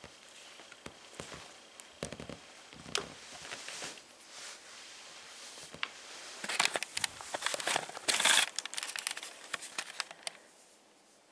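Clear plastic sheeting crinkling and crackling under boot soles as they step on and grind into mashed food. The crackling comes in a run of short bursts, loudest in a dense spell about two-thirds of the way in, and dies away near the end.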